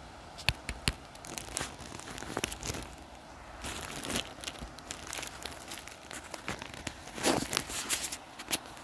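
Footsteps across a grass lawn, with irregular crinkling rustles and clicks; a louder swishing rustle about seven seconds in.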